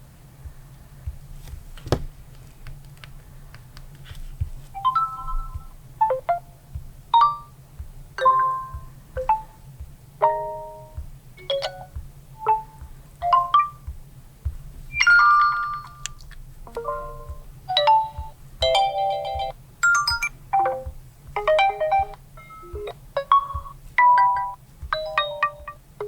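Realme 9 Pro smartphone speaker playing its built-in notification tones one after another: a string of short electronic chimes and blips at changing pitches, each quickly followed by the next. A single click comes about two seconds in, before the tones start, over a steady low hum.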